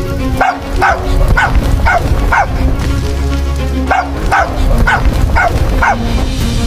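A puppy crying in short, high yelps that fall in pitch, about two a second, in two runs of five with a brief pause between them, over background music.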